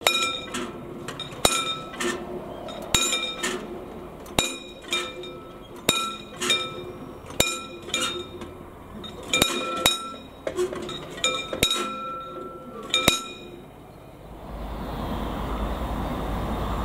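Level-crossing warning bell striking repeatedly with a ringing metallic tone, one to three strikes a second in an uneven rhythm, as the barriers come down. The strikes stop about 13 seconds in, and near the end the steady rush of an approaching ICE 4 high-speed electric train takes over.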